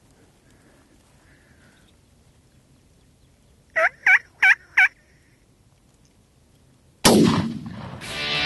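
Wild turkey tom gobbling once, a quick rolling run of about four notes lasting about a second. About seven seconds in, loud music starts abruptly.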